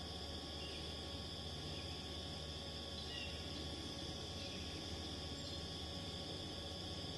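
Steady chorus of singing insects: a continuous high trilling that does not break, over a faint steady low hum.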